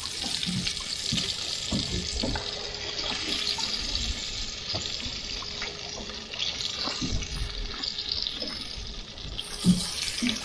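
Battered mangrove snapper fillets frying in a pan of hot oil, with a steady crackling sizzle. A few light knocks come through, the loudest near the end.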